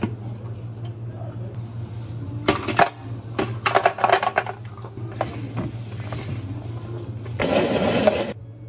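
A plastic blender jar holding orange pieces being handled on a counter: scattered knocks and clatter, then a denser rattle of about a second near the end, over a steady low hum.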